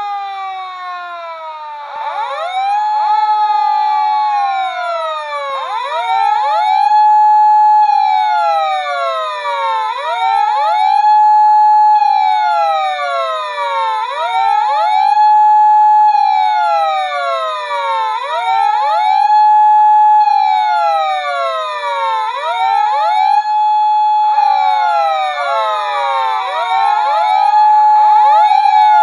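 Several Tomica toy police-car sirens wailing together out of step, each rising quickly, holding a steady pitch for about two seconds and then falling, in the Japanese patrol-car pattern. The overlapping wails grow denser about three-quarters of the way through, as if another siren joins.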